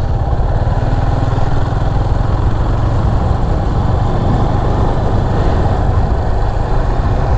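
Motorcycle engine running steadily, its firing pulses even throughout.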